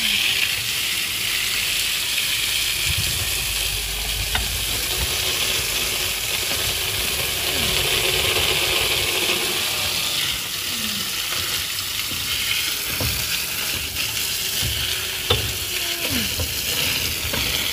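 A stream of water splashing steadily against the muddy L-shaped tines and rotor of a tractor rotavator as it is washed, a continuous hiss. A single sharp knock comes about fifteen seconds in.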